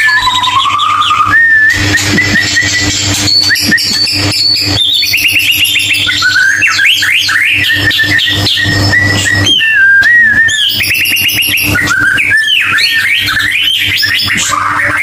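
White-rumped shama (murai batu) singing a continuous, loud song of varied whistled phrases: gliding rising and falling notes mixed with rapid runs of short notes, over a steady low hum. It is a lure song (pancingan) meant to set a shama that has stopped singing off singing again.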